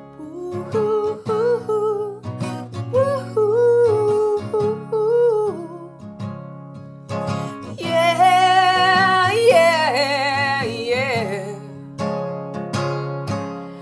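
A woman singing a slow melody over a strummed acoustic guitar. About eight seconds in, her voice rises to a loud, high held note with vibrato, then falls back.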